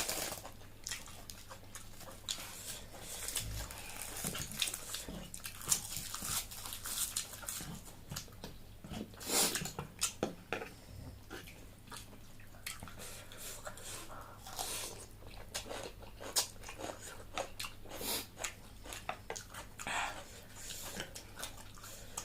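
Close-up eating sounds: chewing and crunching of food, with irregular crisp clicks and wet mouth smacks and a cluster of louder crunches near the middle.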